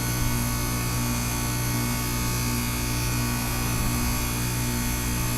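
Goodman heat pump outdoor unit humming steadily with a buzzing tone while in its defrost cycle, running to melt ice off the frozen unit.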